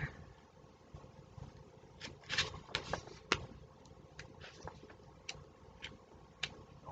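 Paper pattern cards being handled: a cluster of soft rustles and light taps about two seconds in, then a few scattered single ticks.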